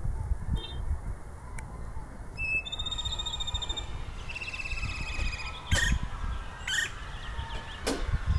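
Woodpecker calling: thin held notes in the first half, then three short harsh squawks about a second apart near the end, over a low rumble.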